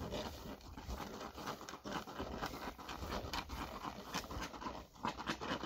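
Dry, ripe wheat stalks rustling and crackling as someone pushes through the standing crop, in uneven bursts.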